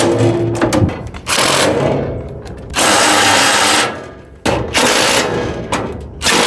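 Cordless power drill/driver running bolts in short bursts of about a second each, stopping and starting several times, the longest and loudest burst near the middle.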